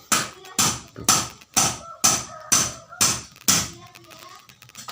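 Rapid, even hammer blows on metal engine parts, about two a second, eight or so in a row, each ringing briefly; they stop about three and a half seconds in.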